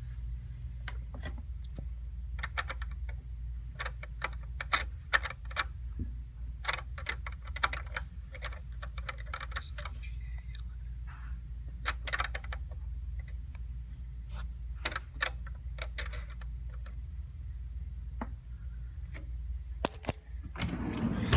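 Irregular sharp clicks and taps of a screwdriver and metal mounting hardware as a CPU air cooler's mounting screws are tightened down, over a steady low hum.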